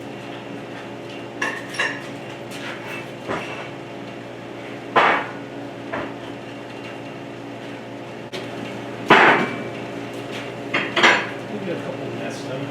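Scattered metallic clanks and knocks, about seven of them, the loudest about five and nine seconds in, over a steady low hum.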